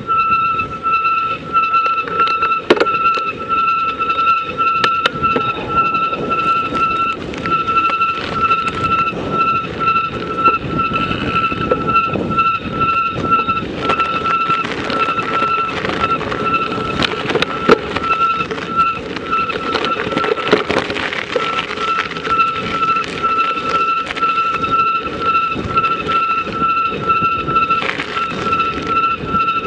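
Vehicle ride noise: continuous rumbling and rushing noise with scattered knocks, over a steady high whine that drops out now and then.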